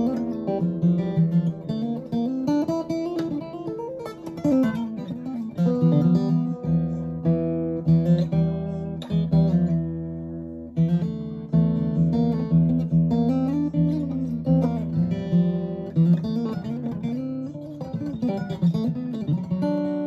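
Martin DRS-1 Road Series dreadnought acoustic guitar played solo: a picked melody of single notes and bent notes over ringing low bass notes, one attack about every second.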